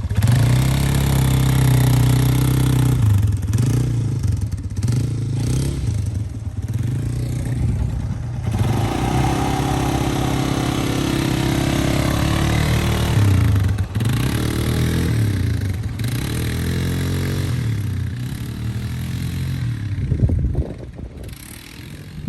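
Polaris ATV (quad bike) engine running, its pitch rising and falling as the throttle changes, then dying down near the end.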